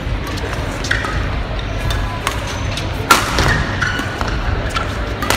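Badminton rally: sharp cracks of rackets striking the shuttlecock, with short squeaks of court shoes on the floor. The loudest hit comes about three seconds in.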